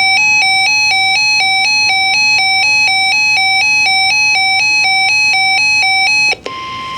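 Weather-radio emergency alert tones: an electronic beep stepping back and forth between two close pitches about four times a second, then about six and a half seconds in it stops and a steady single-pitch alarm tone just above 1 kHz begins, the NOAA Weather Radio warning alarm that heralds a new warning message.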